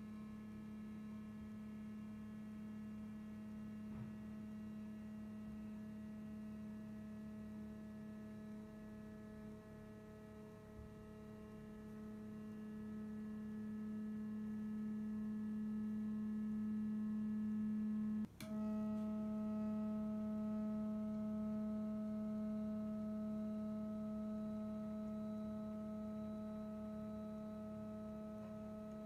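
A steady electronic hum with a row of overtones. About eighteen seconds in it is broken by a single click, after which some of its upper tones change pitch.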